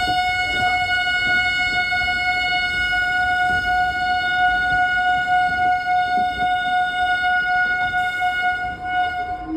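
Electric locomotive horn sounded in one long steady note of about ten seconds, cutting off just before the end, as the Patna–Ernakulam Express pulls out of the station, over a faint rumble of the train.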